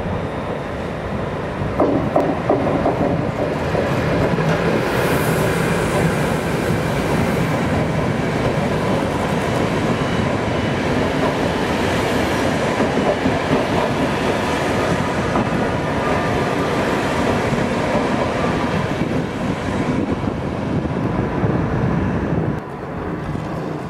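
Electric-hauled Eurocity passenger train rolling past, with a steady rumble of coaches and wheels and a clatter over rail joints, plus a faint squeal. The sound drops to a lower level near the end.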